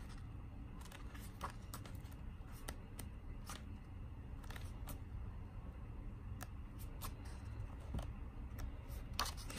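Paper booklet being handled and its pages turned: scattered faint rustles and small clicks over a low steady hum.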